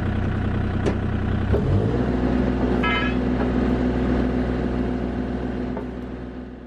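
Bobcat E35 mini excavator's diesel engine running steadily while the bucket is lowered. The engine note shifts about one and a half seconds in, with a brief higher squeal about three seconds in, and the sound fades out near the end.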